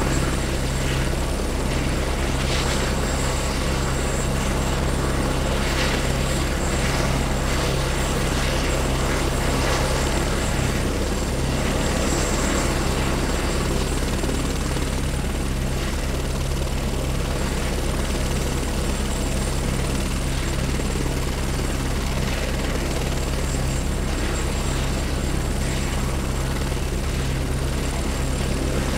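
Helicopter running steadily on the landing pad, heard close: a fast rotor chop under a constant engine hum, with no change in level.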